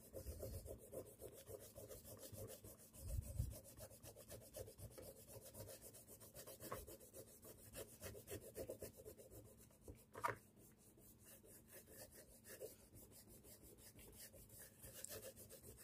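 Faint back-and-forth rubbing of a rubber eraser on sketchbook paper, clearing the pencil sketch lines from under the ink drawing.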